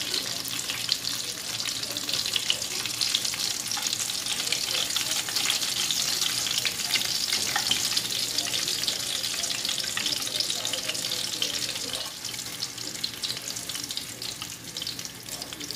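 Breaded chicken cutlets sizzling in hot frying oil, a dense crackle that eases somewhat about three-quarters of the way through. The heat under the pan has just been turned off.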